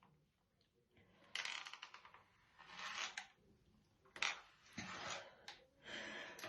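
A hairbrush drawn through hair in slow strokes: five faint rustling strokes, roughly a second apart.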